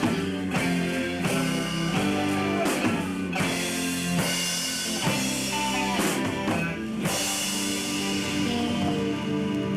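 A band playing a rock-style number: guitar chords over a steady drum-kit beat.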